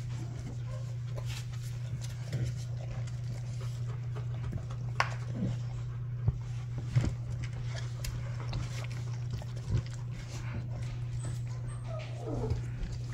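Rottweiler puppies and an adult Rottweiler at play on a wooden floor: scattered light taps and knocks, with a short whimper near the end, over a steady low hum.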